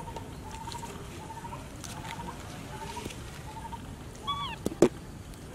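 Baby macaque giving short, thin, slightly rising cries, one about every second, with a louder call about four seconds in. Two sharp clicks follow just after it.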